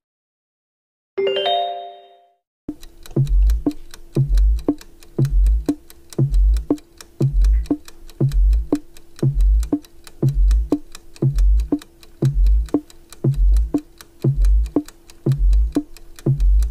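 A short chime about a second in, then a countdown-timer music loop: fast ticking over a steady held tone, with a deep bass thump about once a second.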